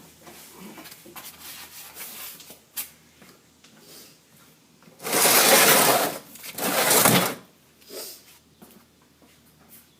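An oil drain pan being slid across the ground under the truck: a few small knocks and rustles, then two loud scrapes about five and seven seconds in.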